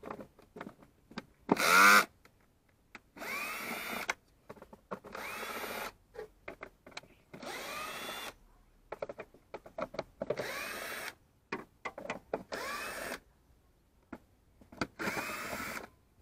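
Cordless drill-driver backing out the screws of a car's air filter housing cover. It runs in about seven short bursts, each spinning up in pitch and then holding, the first the loudest. Small clicks and knocks fall between the bursts.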